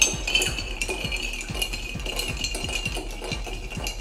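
Bar spoon stirring ice cubes in a rocks glass, the ice clinking and rattling against the glass many times in quick succession.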